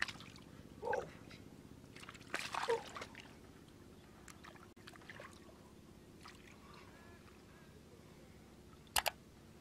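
Hands sloshing and splashing through shallow muddy water, with a few short splashes about one and two and a half seconds in and two sharp clicks near the end.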